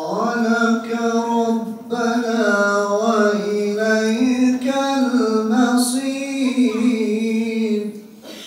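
A single male voice reciting the Qur'an in Arabic in the melodic, drawn-out tajweed style, holding long ornamented notes that waver up and down. There is a short breath about two seconds in, and the phrase ends just before the close.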